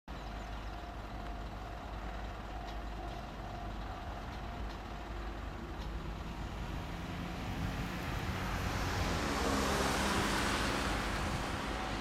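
Road traffic: a steady low rumble, then a light van passing close by, its tyre and engine noise swelling to a peak about ten seconds in and easing off.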